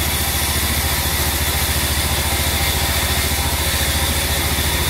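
Large sawmill band saw running as a teak plank is fed through it: a loud, steady mechanical drone with a fast, even low pulsing.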